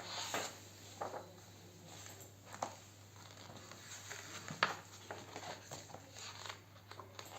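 A few faint rustles and sharp taps of a picture book being handled, over a low steady hum.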